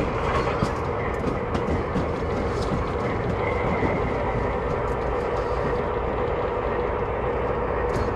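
O gauge MTH Alco RS-11 model diesel locomotive running slowly, its Proto-Sound 3 speaker giving a steady diesel engine drone, with irregular clicks as the wheels pass rail joints and switches.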